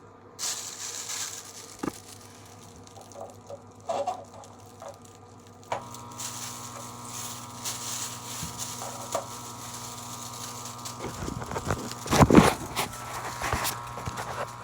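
Volcano Hybrid vaporizer's air pump switching on a little under halfway through and running with a steady hum, inflating a balloon bag. A few faint clicks come before it starts, and a louder knock sounds over the hum near the end.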